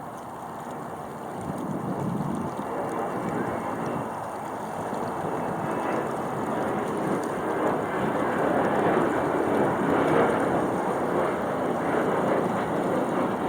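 Wind buffeting the microphone of a mast-mounted camera on a small sailboat under sail, with a steady wash of noise that grows louder in the second half.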